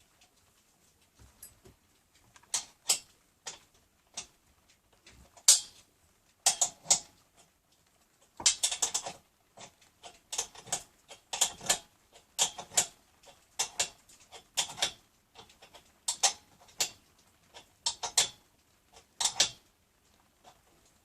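Irregular sharp knocks and clinks, about one a second with a denser cluster near the middle, from hand work fitting rubber feet to an air compressor.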